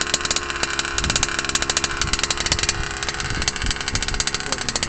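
The 23cc two-stroke gas engine of a Smartech bigfoot RC truck running steadily through a DDM tuned exhaust pipe, a rapid, raspy firing. The owner says the engine still needs some tuning.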